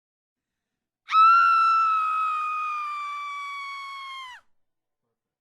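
One long, high-pitched scream-like cry, about three seconds long, loudest at its start, sliding slightly down in pitch as it fades and then cutting off sharply.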